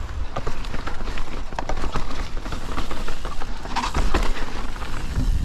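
Mountain bike clattering down a rough dirt trail: a rapid, irregular run of clicks and knocks from tyres and bike over rocks and roots, over a low wind rumble on the microphone.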